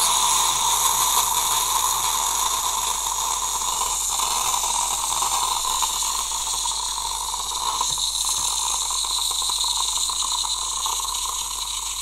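Bosch Tassimo Vivy pod coffee machine pumping hot water through a Tassimo milk disc: a steady hiss of water and steam running from the spout into the mug.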